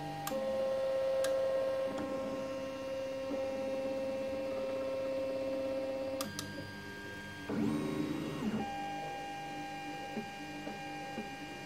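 Stepper motors of a Zonestar Prusa-style 3D printer whining at steady pitches as they drive the print head and inductive probe through the auto bed level moves. The pitch jumps as each move starts and stops, with one rising-then-falling glide about two-thirds of the way through, and a few sharp clicks.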